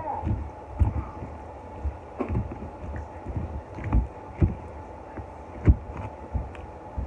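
Close-up chewing and mouth sounds of someone eating: irregular smacks and clicks with soft low thumps, over a faint steady hum.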